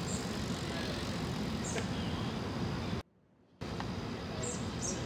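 A steady, loud rushing noise that cuts out abruptly about three seconds in and returns about half a second later.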